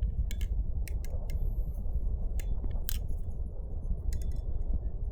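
Bite Blades Titan balisong being flipped, its aluminium handles and blade giving irregular light metallic clicks and clinks, with one sharper clack about three seconds in.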